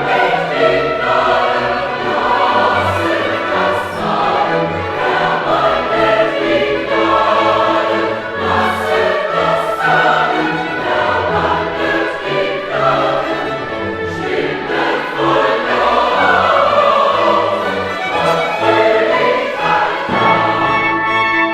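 Choir singing classical sacred music with instrumental accompaniment.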